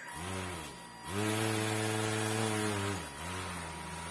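Small electric motor spinning a propeller on a homemade RC car, revving up and down under the throttle. It rises, holds a steady pitch for about two seconds, drops, runs lower for a second, then climbs again near the end.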